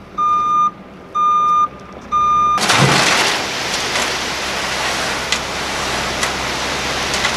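Dump truck's reversing alarm beeping three times, about once a second, over the truck's running engine. About two and a half seconds in, a load of crusher-run road-base gravel starts pouring off the tipped dump bed in a steady rushing, rattling flow.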